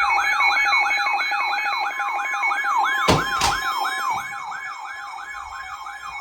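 Electronic siren giving fast, repeated downward sweeps in pitch, about three a second, over a steady tone. Two sharp clicks come about halfway through, and the siren fades away over the second half.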